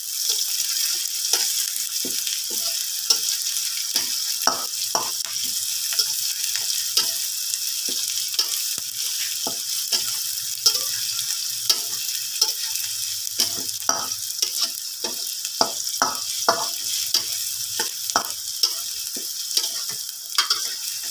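Chopped shallots, garlic and ginger sizzling in hot oil in a wok. A metal spatula scrapes and taps against the wok about once or twice a second as they are stirred.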